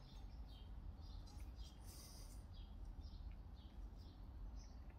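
Near silence: a low room hum with faint, short high-pitched chirps repeating every half second or so.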